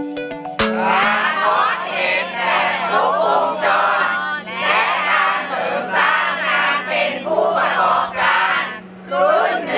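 A group of people shouting and cheering together, many overlapping voices in repeated bursts about once a second. It follows the end of a short plucked-string music phrase about half a second in.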